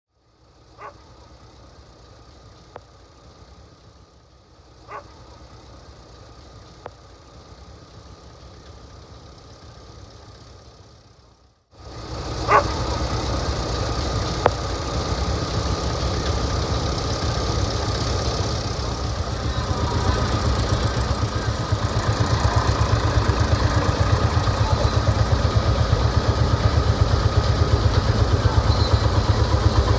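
Vintage tractor engines running as tractors drive slowly past, among them a green Deutz and a red Massey Ferguson. The engine sound cuts in suddenly about twelve seconds in and grows louder toward the end with an even beat as the Massey Ferguson passes close. Before that there is a quieter background with a few short sharp sounds.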